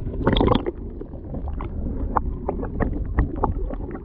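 Muffled water noise: a steady low rumble with many short clicks and small splashes scattered through it.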